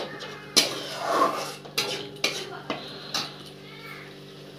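Spatula scraping and knocking against a kadai while stirring ground masala paste frying in oil, with several sharp knocks in the first three seconds and quieter stirring after. This is the masala being fried down (bhuna) before the dry spices go in.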